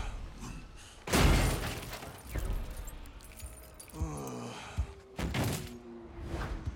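A heavy crash about a second in as the Hulk smashes wreckage, then deep grunts with falling pitch around four seconds in, and another crash a little after five seconds as he grabs a motorcycle.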